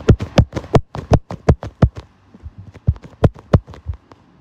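Rapid sharp tapping close to the microphone, about six taps a second, in two runs with a short break about two seconds in.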